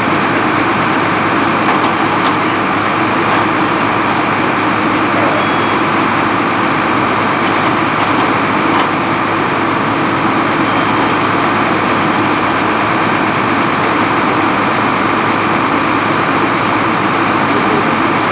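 Steady, unbroken drone of fire apparatus engines running at the fire scene.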